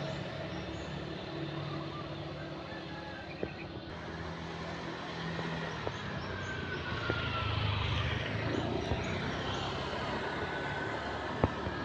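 Road traffic on a village street: vehicle engines running steadily. About seven to eight seconds in, one vehicle passes close by, its pitch falling as it goes.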